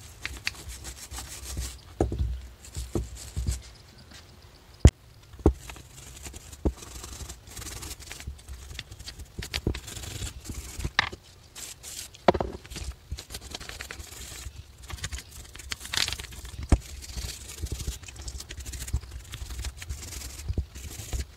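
Small nylon brush scrubbing the degreaser-wet body of a Mikuni two-stroke carburetor from a 2000 Honda CR125, in short irregular strokes. A few sharp clicks and knocks break in as the carburetor is handled, the loudest about five seconds in.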